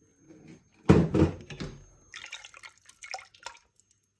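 Water and dal sloshing in a cooking pot, with one loud knock about a second in that fades out, then a few light clicks.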